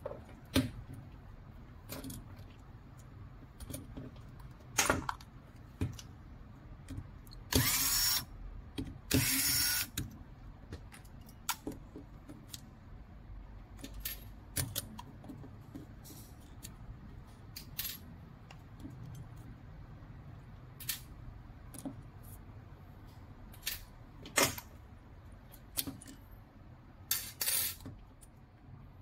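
Hard plastic parts of a hobby RC car's chassis and suspension clicking and knocking as they are handled and taken apart, with two louder scraping sounds, each about a second long, near the middle.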